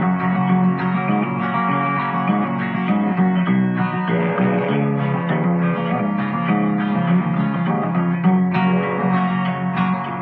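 Instrumental break in an old-time country song: a guitar picks out the melody over a steady strummed rhythm.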